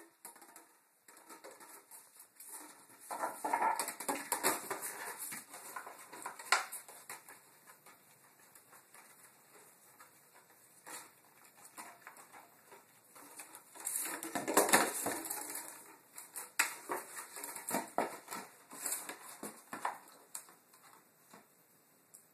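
Empty plastic water bottles crinkling and clattering on a tile floor as a puppy noses and pushes them, in irregular bursts with sharp clicks. It is loudest about three seconds in and again a little past the middle.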